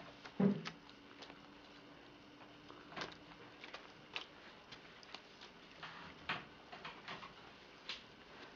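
A cloth scrubbed by hand over a waterproof laminate floor, giving short irregular rubbing strokes at uneven intervals. There is a soft thump about half a second in.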